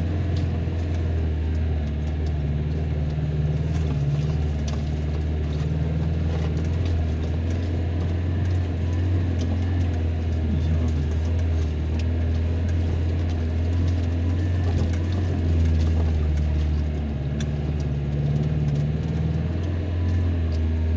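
Vehicle engine running at a steady low drone, heard from inside the cabin while driving slowly over a bumpy grass track, with frequent small rattles and clicks from the body and interior.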